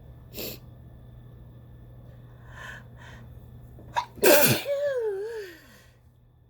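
A woman sneezing once, loudly. A sharp breath in near the start and a few faint catching breaths build up to the sneeze about four seconds in. The sneeze trails off into a falling, wavering voiced sound.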